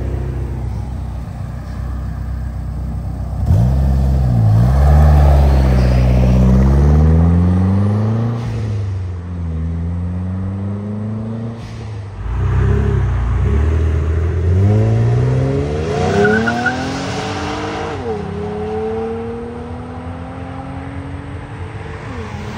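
Modified cars accelerating away one after another, engines and exhausts revving. The pitch climbs and drops back at each gear change. The loudest pull starts about three and a half seconds in, and further climbs and shifts follow in the second half.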